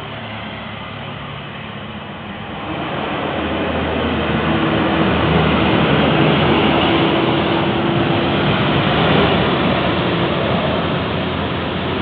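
Two tour buses driving past close by, one after the other: engine and tyre noise swells from about three seconds in, with a steady engine hum through the middle, and stays loud to near the end.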